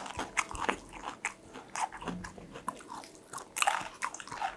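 A person biting and chewing crunchy food close to the microphone: a run of short, sharp crunches, with a louder cluster about three and a half seconds in.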